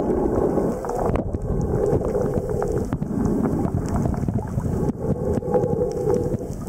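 Muffled underwater rumble picked up through a camera's waterproof housing: a steady low wash of water noise with scattered faint clicks.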